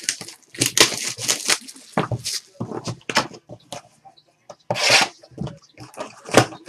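A 2013 Panini Select football cardboard card box being handled and packs pulled from it: an irregular string of rustles and scrapes.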